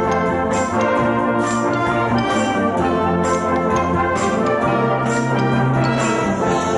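A brass band playing a tune together: cornets, horns, euphoniums, trombones and tubas holding and moving between chords, over a drum kit keeping a steady beat.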